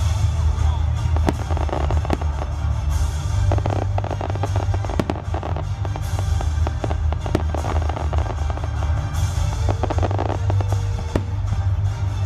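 Aerial fireworks shells bursting overhead in a display, many sharp cracks and bangs in quick succession over a steady low rumble, with music playing along.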